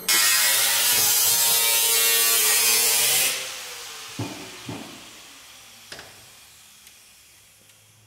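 Angle grinder cutting through car floor sheet metal, its motor pitch sagging slightly under load. About three seconds in it is released and the disc spins down with a falling whine, with a few light knocks as it winds down.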